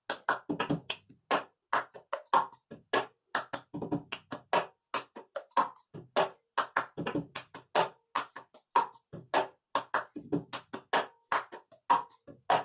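Cup-game rhythm: hand claps, hands patting a tabletop and cups knocked down on it in a quick repeating pattern of sharp taps and low thumps, stopping abruptly near the end.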